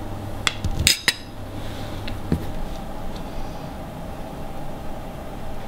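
A few light clinks of china and metal cutlery, the sharpest pair about a second in, over a steady low room hum that drops out about halfway through.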